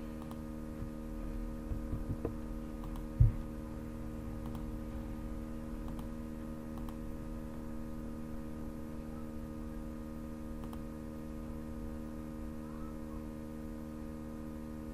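Steady electrical hum with a few faint mouse clicks. A single low thump about three seconds in is the loudest sound.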